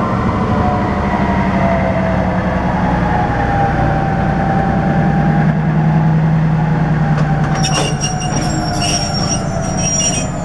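Diesel switcher locomotive rolling slowly past at close range, its engine running with a steady low drone. From about seven and a half seconds in, high-pitched wheel squeal comes and goes.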